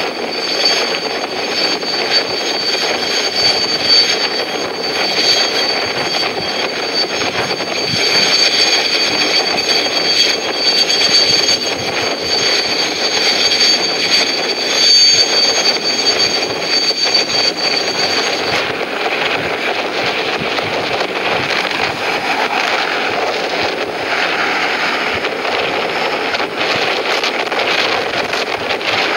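Mil Mi-26 heavy-lift helicopter running on the ground at takeoff power, a loud steady rush of rotor and turboshaft engine noise. A thin high turbine whine sits over it and cuts off about two-thirds of the way through.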